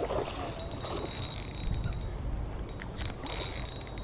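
Fishing reel being cranked to retrieve a cast lure: the reel's gears whir with many quick, irregular clicks.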